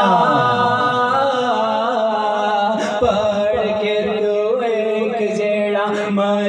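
A man chanting or singing a devotional recitation in long held notes that waver in pitch, with a steady low tone underneath.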